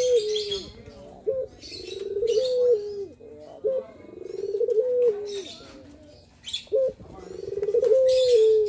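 Male Barbary dove (puter) giving its display coo, three times: each phrase is a short note followed by a long, rolling coo that rises and then steps down at the end. Short high chirps sound between the coos.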